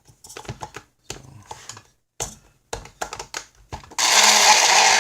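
Clicks and taps of plastic parts as the chopper's repaired switch button is pressed, then the electric kitchen chopper's motor runs loudly for about a second and stops, showing the fix works.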